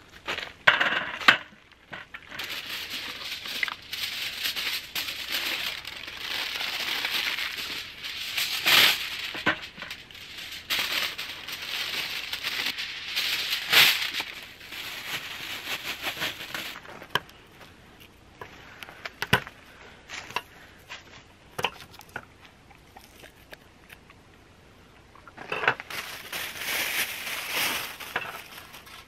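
Rustling and crinkling with scattered clicks and knocks, in two longer stretches: a long one through the first half and a shorter one near the end, with sparse clicks between.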